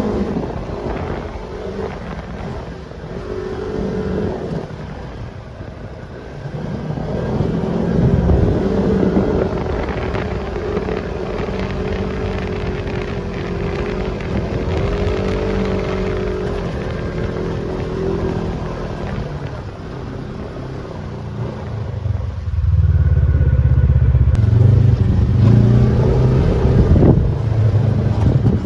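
Off-road vehicle engine running under way on a sandy trail, its pitch rising and falling with the throttle. A heavier low rumble takes over about three-quarters of the way through.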